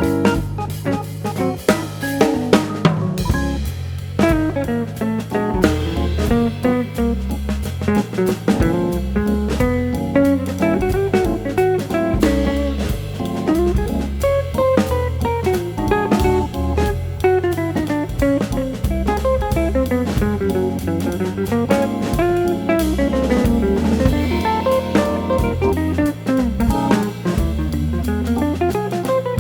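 Background music: an instrumental track with guitar and a drum kit keeping a steady beat.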